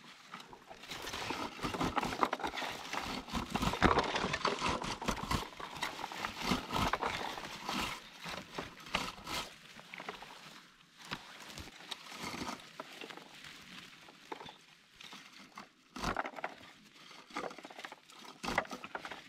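Bilberry twigs and leaves rustling and crackling as berries are stripped from the bushes with a berry-picking scoop, with a patter of small clicks. It is busiest for the first several seconds, then comes in sparser bursts.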